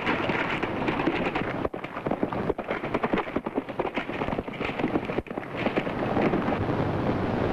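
Action-scene sound effects on a worn early-1930s film soundtrack: a dense, noisy din with hiss, broken by several brief dropouts in the track.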